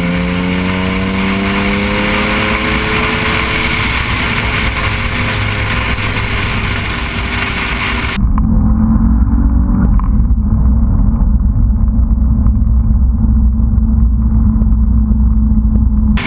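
Noble M400's twin-turbo V6 pulling the car along, its note rising for the first few seconds, then holding steady at cruise over road noise. About halfway it turns duller, heard from inside the cabin, where the engine drones steadily with a heavy low rumble and a short rise in revs.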